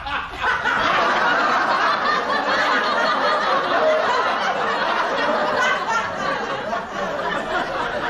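Sitcom laugh track: many audience members laughing together in a steady wash, swelling up just after a punchline.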